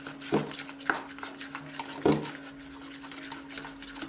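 A stirring stick scraping and tapping in a plastic bowl as white glue and powder paint are mixed, with two louder knocks about a third of a second and two seconds in.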